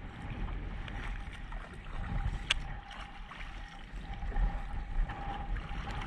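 Kayak paddle strokes and water slapping against an Old Town Predator 13 kayak's hull in light chop, with wind rumbling on the microphone. One sharp click about two and a half seconds in.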